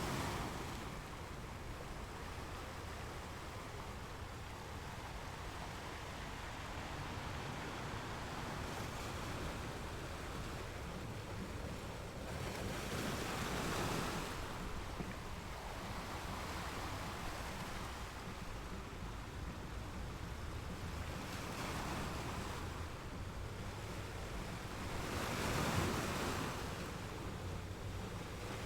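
Ocean waves washing onto a shore, each wave surging up and falling away over several seconds, loudest about halfway through and again near the end, over a steady low rumble.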